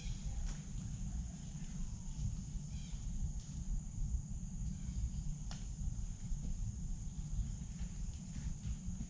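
Forest ambience: a steady high-pitched insect drone over a low rumble, with a few faint, scattered crunches of footsteps on dry leaf litter.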